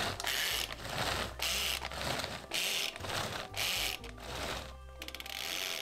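Manual pull-cord food chopper chopping tomatoes and green chillies: repeated quick pulls, about one a second, each a short whirr of the blades and gears, stopping about five seconds in.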